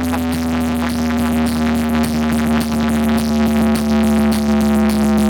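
Electronic dance music with a held deep synth bass drone and steady synth tones over a fast, even rhythmic pulse.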